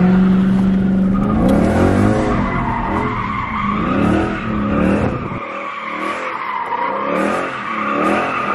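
Dodge Charger's V8 engine revving up and down again and again while the tyres squeal steadily as the car is spun in a donut, heard from inside the cabin. The deep engine rumble drops away sharply about five and a half seconds in.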